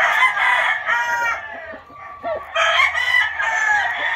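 Several roosters crowing, their calls overlapping, with a short lull about halfway through.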